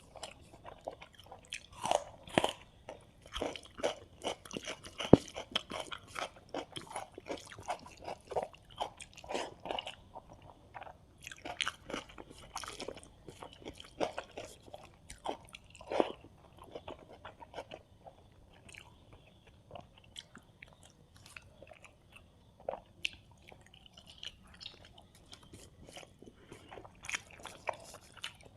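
Close-miked eating: irregular crunching bites and chewing of a fried-fish and rice meal, with one sharp crunch about five seconds in.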